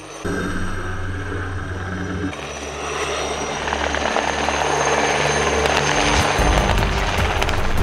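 Helicopter flying in low and getting steadily louder, with the beat of its rotor blades coming through in the last second or two.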